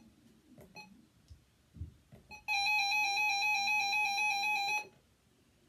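RadioShack 12-262 weather alert radio sounding an electronic alert tone for about two seconds, after a few soft button clicks.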